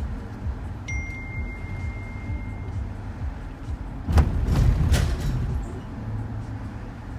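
Low, steady rumble of a shuttle van on the road, heard from inside. About a second in, a single steady electronic beep sounds for about two seconds. Around four seconds in come two sharp knocks about a second apart, with the rumble briefly louder.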